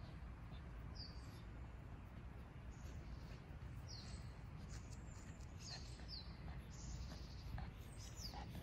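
Faint outdoor ambience: a low steady rumble with several short, high bird chirps, each falling in pitch, scattered through it.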